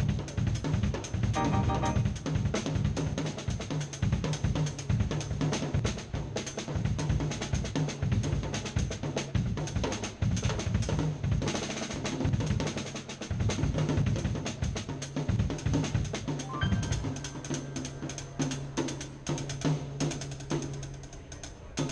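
Drum kit played fast and busy, with dense snare, bass drum and cymbal hits, over a held low bass note.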